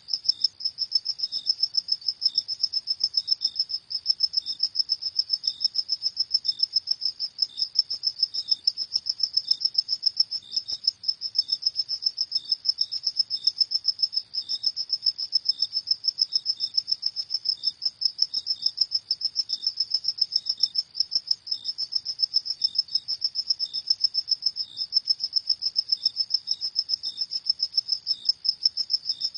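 Crickets chirping in a rapid, even, unbroken rhythm, high-pitched, with fainter chirps just below the main pitch.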